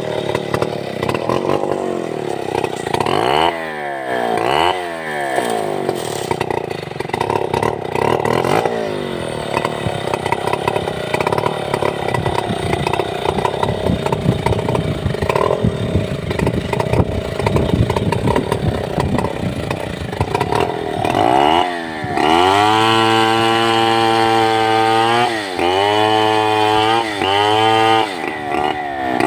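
Stihl 070 chainsaw's big single-cylinder two-stroke engine running unevenly, revved up and down twice a few seconds in, then held at high revs for the last several seconds with a few brief dips.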